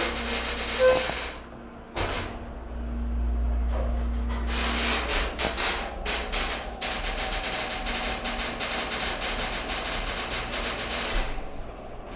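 Elevator car travelling, making weird noises: a low rumble with a hum starts about two seconds in. Soon after, a rapid clicking rattle sets in and runs until it stops shortly before the end.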